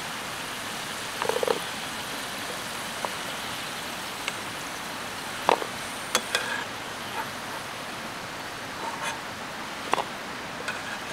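Potato chunks sizzling in hot mustard oil in a steel frying pan, with a steady hiss throughout. A metal spatula scrapes and clacks against the pan several times as the pieces are lifted out.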